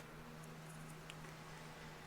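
Quiet room tone: a faint steady low hum with a couple of tiny faint clicks.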